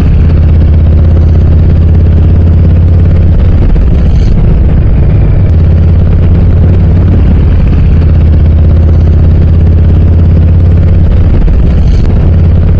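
2023 Harley-Davidson Low Rider S's Milwaukee-Eight 117 V-twin running steadily through Cobra RPT slip-on mufflers, a loud, low, even exhaust note.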